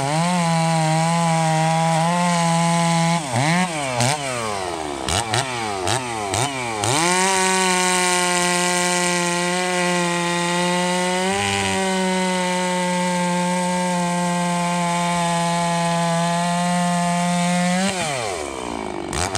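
Rebuilt, lightly ported Stihl 066 two-stroke chainsaw cutting through a thick log at a steady high pitch. From about three to seven seconds in, the revs drop and climb back several times. It then holds a steady high pitch until the revs fall near the end.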